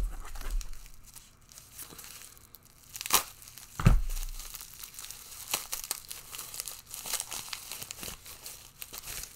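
Packaging crinkling and tearing as items are unwrapped by hand, with a sharp crackle about three seconds in and a thump just after it.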